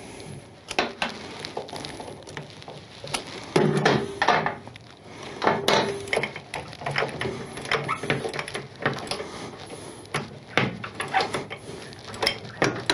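Irregular metallic clinks, knocks and scrapes from the lower rear-shock mounting bolt being wiggled in its mount. The swingarm is propped on a bottle jack while the bolt is worked until it comes free.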